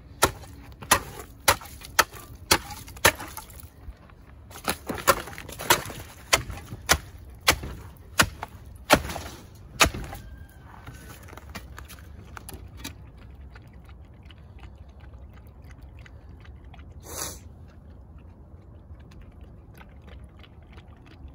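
Steel spade chopping through the ice on a frozen livestock water trough: about fifteen sharp, loud strikes, roughly two a second, with a short pause about four seconds in, stopping after about ten seconds. Then softer clinks and sloshing of broken ice and water, with the dog lapping from the opened trough near the end.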